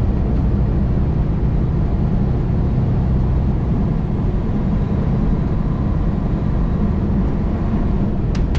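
Inside a semi-truck's cab at highway speed: the steady low drone of the diesel engine, mixed with tyre and road noise.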